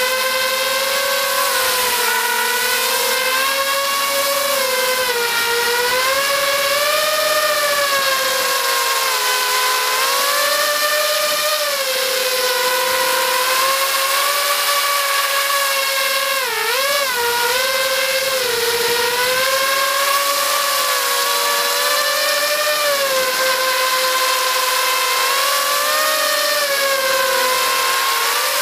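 Quadcopter's four brushless motors and propellers whining in flight, the pitch rising and falling constantly with throttle changes. A quick dip and surge in pitch comes about seventeen seconds in.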